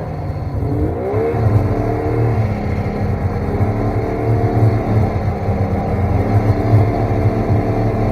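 Snowmobile engine running under throttle, revving up about a second in and then holding a fairly steady pitch with small rises and falls.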